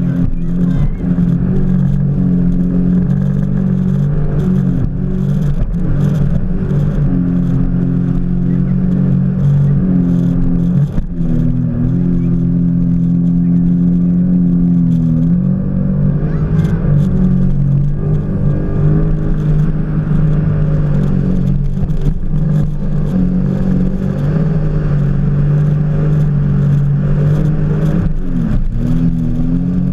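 Jet ski engine running at speed, its pitch dipping and climbing back a few times as the throttle is eased and opened again, with frequent short knocks as the hull hits the water.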